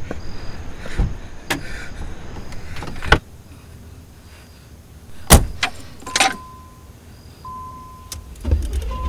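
Sharp knocks, thuds and rattles of someone scrambling in and around a car. From about six seconds in, the car's warning chime beeps repeatedly at one steady pitch. Crickets chirp faintly in the background.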